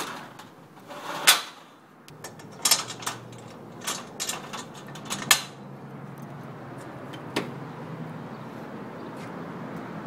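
A shop's glass door and a padlocked metal folding security gate being handled: a string of sharp clicks and metal clanks, the loudest about a second in, over a low steady hum.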